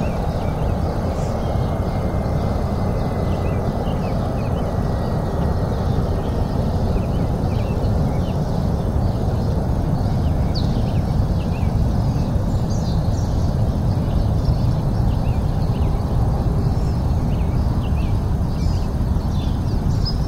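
A steady, loud rushing noise, like wind on the microphone or a running fan, with faint short high chirps scattered through it.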